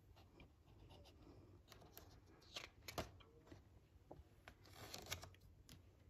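Faint paper rustling and a few soft taps as the page of a hardcover picture book is turned, the clearest a little before halfway and again near the end.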